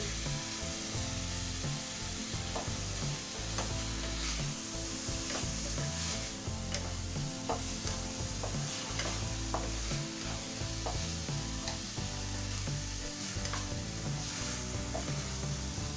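Sprouted moth beans sizzling in hot oil in a pressure cooker pan while being stirred with a spatula, with scattered clicks and scrapes of the spatula against the pan.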